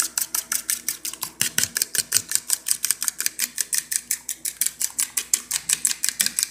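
A fork whisking egg wash in a plastic bowl: a fast, even run of clicks as it strikes the bowl, about seven strokes a second.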